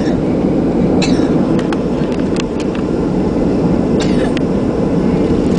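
Cabin noise of a Boeing 737-700 taxiing: a steady low rumble from the engines and wheels, with a few scattered light clicks and rattles.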